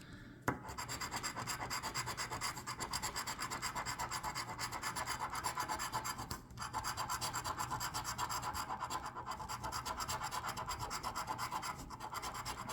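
Scratch-off lottery ticket being scratched: quick, even scraping strokes, about six a second, with a brief pause about halfway through.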